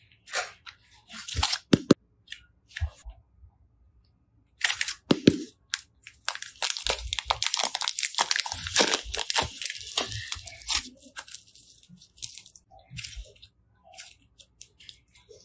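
Hands squeezing and folding slime, with a few sharp crackles in the first two seconds. A dense, crisp crinkling crackle runs from about five to eleven seconds in, then thins to scattered clicks.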